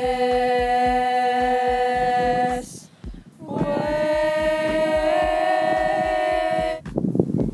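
Background music: two long held chords, the first breaking off about two and a half seconds in and the second starting about a second later, over a steady beat.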